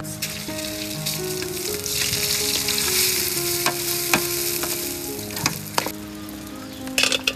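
Oil sizzling in a wok as raw rice is stirred through it with a metal ladle, the ladle scraping and clinking on the wok. The sizzle swells in the middle and dies down about five seconds in, followed by a few sharp clinks near the end.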